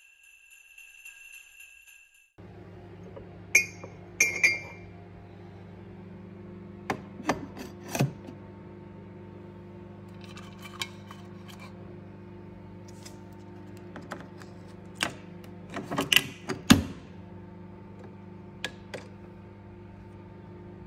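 Scattered clinks and knocks of crockery or glassware being handled, over a steady low hum. A short bright ringing tone, like a chime, comes first and stops about two seconds in.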